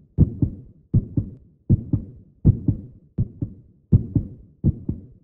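Heartbeat sound effect: a steady lub-dub of paired low thumps, seven beats at about 80 a minute.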